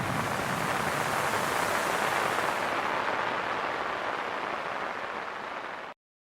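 Heavy rain pattering on a hard surface, a dense steady hiss of drops that fades gradually and then cuts off to silence about six seconds in.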